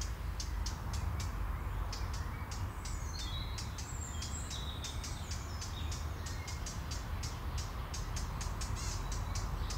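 Songbirds singing: many short high chirps and a few quick descending whistled phrases, over a steady low rumble.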